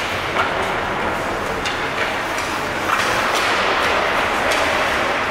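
Ice hockey play: skate blades scraping and carving across the ice in a steady hiss, with several sharp clacks of sticks hitting the puck and the ice.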